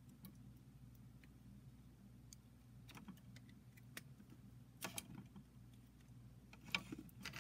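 Faint handling noise from the phone being moved close to its own microphone: scattered small clicks and rubs, the loudest near the end, over a low steady hum.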